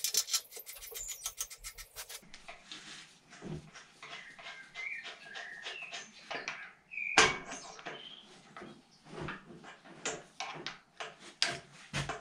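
Small metal hydraulic fittings being handled and screwed into a valve, with clicks, taps and scrapes. There is a fast run of even ticks in the first two seconds, one sharper click about seven seconds in, and a cluster of clicks near the end.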